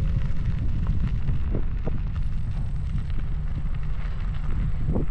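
Wind buffeting the microphone: a loud, steady low rumble with a few light knocks and rattles scattered through it.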